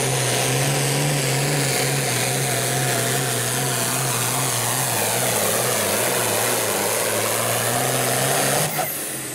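Turbocharged diesel engine of a 9,500 lb hot farm pulling tractor running flat out under full load as it drags the weight-transfer sled, a loud, steady drone. Near the end the engine sound drops away suddenly as the throttle comes off at the end of the pull.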